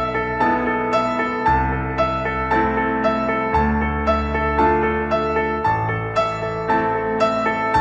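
Instrumental background music: a repeating melody with notes struck about twice a second over low held chords that change every two seconds or so.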